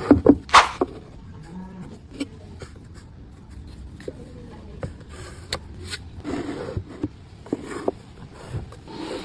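Scattered clicks, knocks and short scrapes of wood and hand tools being handled, with a louder scrape about half a second in.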